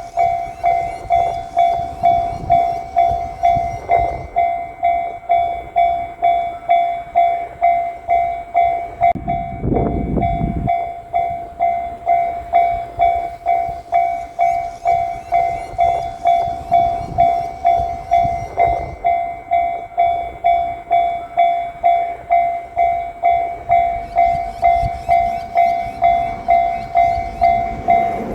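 Japanese railway level-crossing warning bell ringing its repeated "kan-kan" tone about one and a half times a second, the signal that a train is approaching. A brief low rumble comes about ten seconds in, and low rumbling builds near the end.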